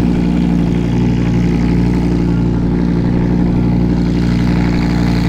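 A car engine idling loudly and steadily at a constant speed, with no revving.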